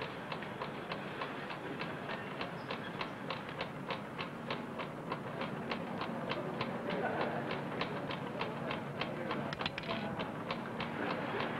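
Factory-floor machinery clicking in a steady, even rhythm, about four clicks a second, over a general machine-room noise. A low steady hum joins about four and a half seconds in.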